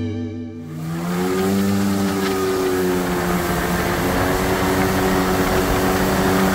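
Background music cuts out in the first moment, then a jet ski engine runs steadily at speed. Its note rises about a second in and holds, over a steady hiss of wind and water.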